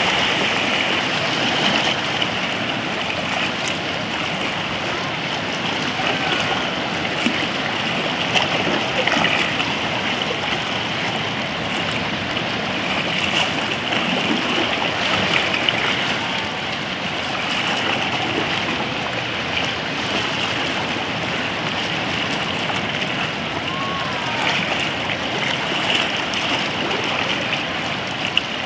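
Shallow sea water washing and lapping around rocks along a rocky shore, a steady wash of water noise.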